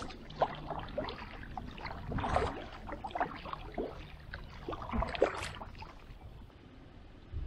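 Paddle strokes from an inflatable kayak: the blades dipping and pulling through calm water with splashes and drips, a stroke about every second or two.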